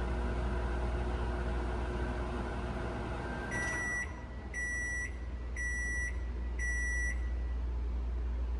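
GE over-the-range microwave oven running with a steady hum, which stops about three and a half seconds in. It then gives four beeps about a second apart, the end-of-cycle signal. A low hum carries on underneath.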